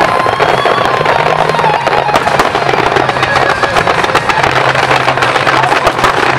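A dense barrage of fireworks: rapid, continuous crackling and popping from bursting aerial shells. Show music plays underneath, a wavering held melody over a steady low drone.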